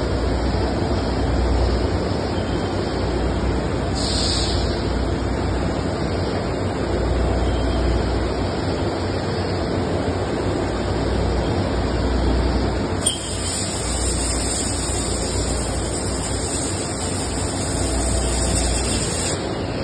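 Steady machinery noise on a compression molding shop floor: a broad hiss over a low rumble that swells and fades every few seconds. A single sharp click comes about two-thirds of the way through.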